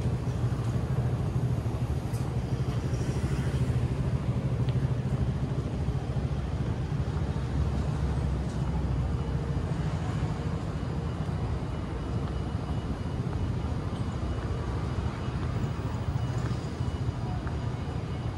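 Steady low rumble of city street traffic, with a faint steady hum running through it.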